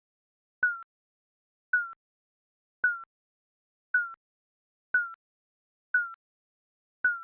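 Digital countdown timer beeping about once a second: short electronic beeps on one slightly falling tone, seven in a row with silence between.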